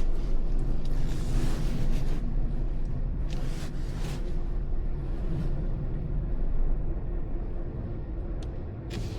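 A car driving, heard from inside the cabin: a steady low engine and road rumble, with a few brief hissing swells from the tyres.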